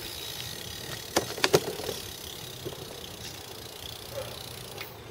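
BMX bike being ridden over concrete, with a steady rush of riding noise. About a second in there is a quick run of three or four sharp knocks.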